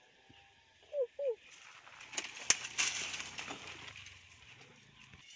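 A bird calls twice about a second in, two short falling notes. Then dry leaves and twigs crackle and rustle for about two seconds, with a few sharp snaps.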